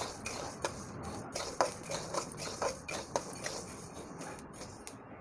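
Metal spatula stirring and scraping pearl millet grains around a dry iron kadhai as they roast, the grains rustling with a sharp scrape about every half second, fewer strokes near the end.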